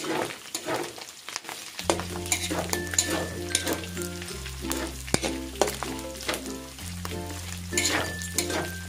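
Pork sizzling as it is sautéed in a pan and stirred, with frequent scrapes and crackles. Background music with a slow-changing bass line plays throughout.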